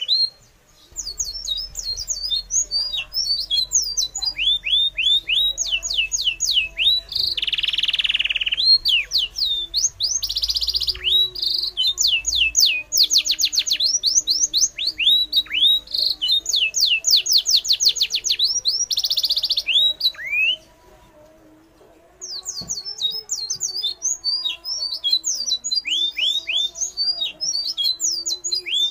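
Birds chirping in a dense, rapid stream of high, falling chirps, broken by a few harsh squawks. The chirping cuts off abruptly for about two seconds past the middle, then resumes.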